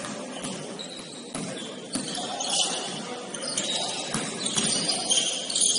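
A basketball being dribbled on a gym court, a bounce about every half second, with high sneaker squeaks on the floor from about halfway through.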